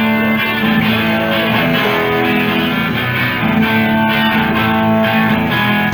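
Live band music: a guitar playing ringing chords and sustained notes at a steady level, as the song gets under way.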